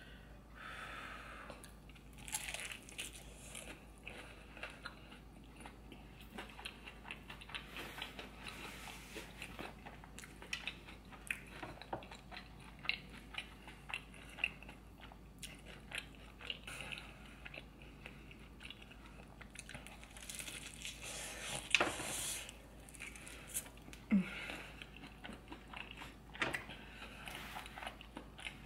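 A person chewing and biting deep-fried seafood close to the microphone, fairly quietly: a steady run of small wet clicks and crunches, with one louder noise about three-quarters of the way through.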